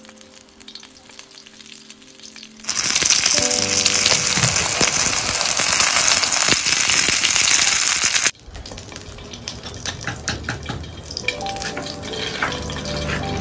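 Spring rolls frying in hot oil in a wok: a loud, steady sizzle that cuts in about three seconds in and stops abruptly some five seconds later. After that comes quieter crackling frying with light clicks.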